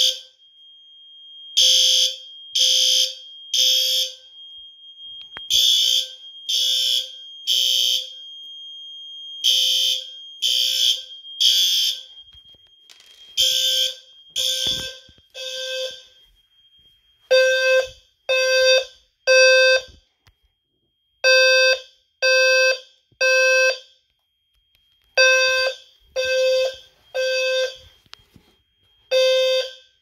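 Fire alarm horns sounding in alarm in the temporal-three evacuation code: three short blasts, a pause, repeating every four seconds. The alarm was set off by a detector test. From about halfway, a louder, clearer-toned horn dominates. A thin steady high tone carries on between the blasts until then.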